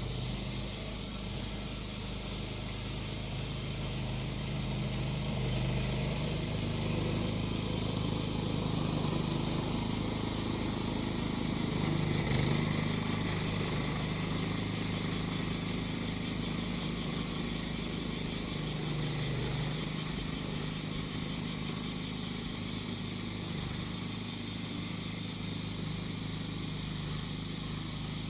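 Small petrol engine of a grass-cutting machine running steadily, its pitch wavering slightly and dipping briefly about two-thirds of the way through, under a continuous high droning chorus of cicadas.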